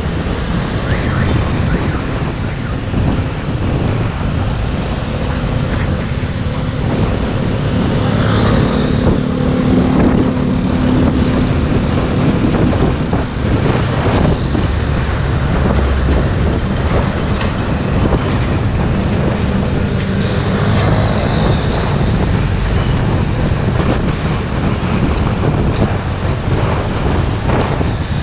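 Steady wind and road noise from a ride along a busy road in motorbike and truck traffic. Two brief hissing swells come about eight and twenty-one seconds in.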